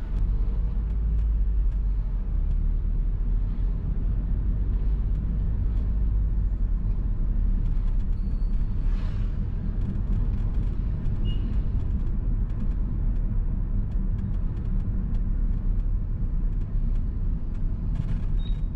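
A car driving in slow town traffic: a steady low rumble of engine and road noise, with faint light ticks over it.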